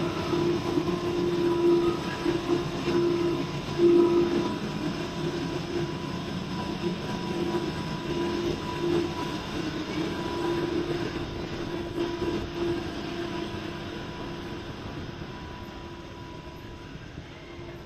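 RoRo ferry's engines and machinery running with a steady hum. The hum fades gradually over the second half as the listener moves down the ramp onto the pier.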